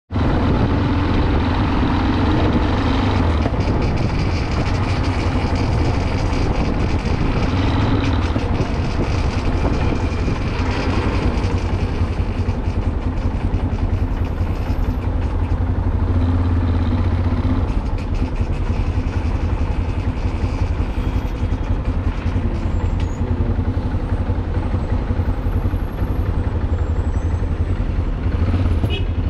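Motorcycle riding through city traffic: a steady engine drone with road and traffic noise around it.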